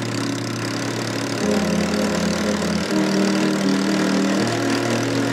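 Electronic background music: sustained low synth notes that step to a new pitch about every second and a half.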